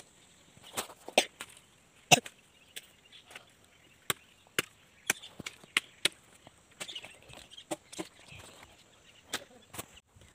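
A blade chopping into a fallen green neem branch: sharp, irregular strikes, roughly two a second, the loudest about two seconds in.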